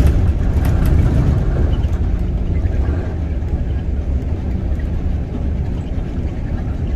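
Low, steady rumble of street traffic, with buses and cars running close by.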